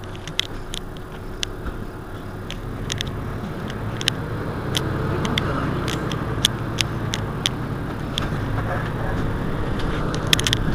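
Mercedes-Benz Citaro C2 city bus's diesel engine running, growing louder over the first few seconds and then holding steady, with scattered sharp clicks and rattles throughout.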